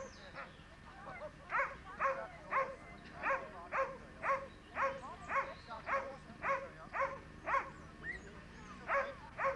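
Excited dog barking repeatedly in short, high, evenly spaced barks, about two a second, with a brief pause about eight seconds in. The barking is the eagerness of a sighthound held back at the start of a lure-coursing run.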